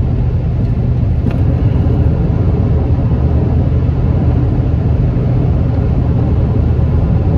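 Pickup truck driving on the road, heard from inside the cab: a steady low drone of engine and road noise.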